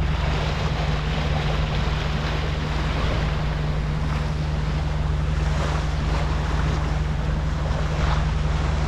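Wind buffeting the microphone and the sea rushing and splashing around a sailing yacht in rough tidal water, with a steady low hum underneath.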